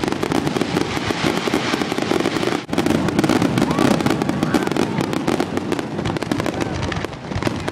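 Fireworks going off: a dense, continuous crackle of many rapid pops, with a momentary drop a little over two and a half seconds in.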